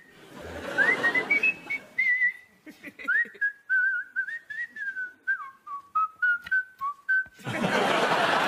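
A man whistling a wandering tune of short notes that slide up and down, over audience laughter at first. Just past seven seconds in, the whistling stops and the audience breaks into applause.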